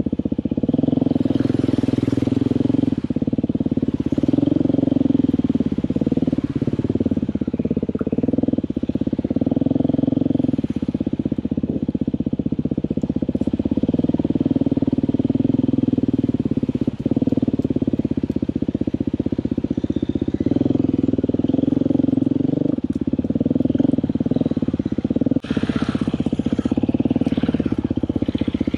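Dirt bike engine running on a trail ride, its pitch and level rising and falling every second or two as the throttle opens and closes. Two sharp knocks come through, one in the middle and one near the end, followed by a short spell of rushing noise.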